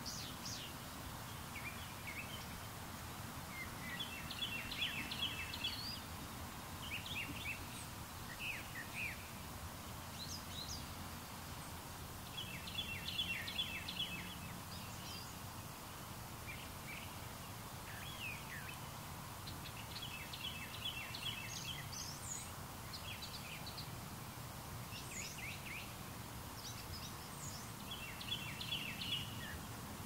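Songbirds calling, one repeating a short rapid run of chirps about every eight seconds, over a steady hiss from the Canon T3i's automatic gain control.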